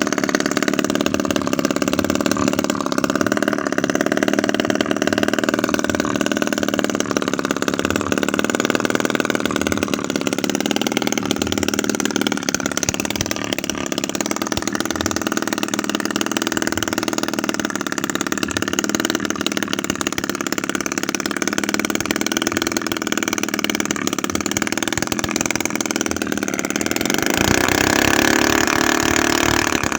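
Homemade 7cc two-stroke engine, built from an old refrigerator compressor, running steadily with a slight wavering in speed. Near the end its speed picks up and the pitch rises.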